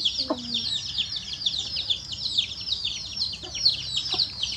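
Many small birds chirping together, a constant run of short, high, falling chirps coming several a second.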